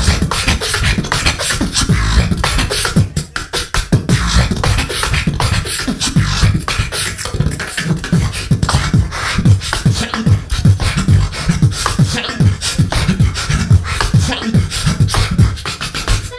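Beatboxing into a handheld microphone: a rapid, unbroken rhythm of deep bass-kick thumps with sharp snare and hi-hat clicks over them.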